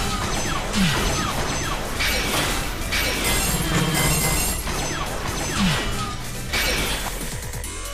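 Anime battle soundtrack: tense background music with several sudden crash and impact sound effects, some with a shattering edge, and a few short falling swooshes.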